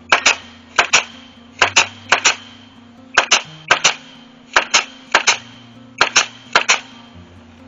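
Pneumatic nail gun firing nails into greenhouse poly film, a quick run of about nine shots, each a sharp double crack.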